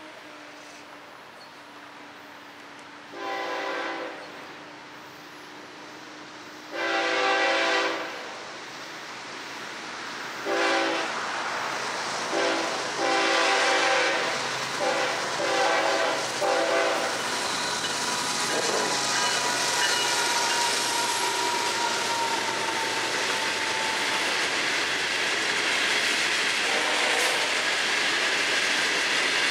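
Freight train's diesel locomotive horn blowing on the approach: a short blast, a longer blast, another short one, then a quick run of short toots. The train then rolls past close by, its cars' wheels clattering over the rail joints in a steady rush that grows louder.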